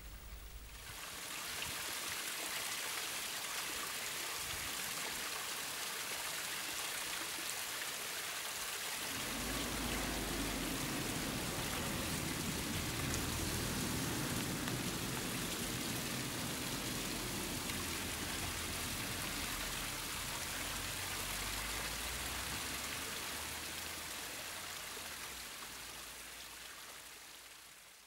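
Steady rushing noise, even and without distinct events. It fades in just after the start, gains a deeper layer about nine seconds in, and fades out near the end.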